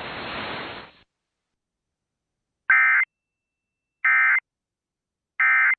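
Emergency Alert System end-of-message code: three short, identical bursts of warbling SAME data tones, about a second and a half apart, marking the end of the alert. Before them, broadcast hiss cuts off about a second in.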